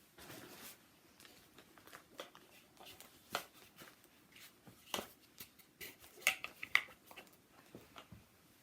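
Scattered light clicks, taps and rustles of objects and fabric being handled, with a few sharper knocks about three, five and six to seven seconds in.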